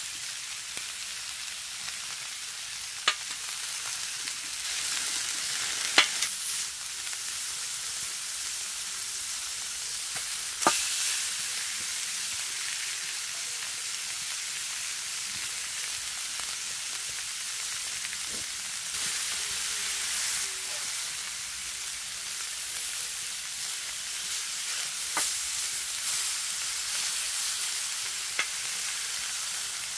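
Beef short ribs searing on an iron griddle plate: a steady hissing sizzle, with a few sharp clicks scattered through it.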